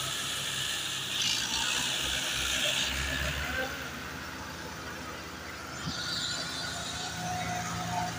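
Diesel engines of a Fiat 480 tractor and a second tractor running under load as they pull a loaded sugarcane trolley out of a field, one tractor towing the other on a chain.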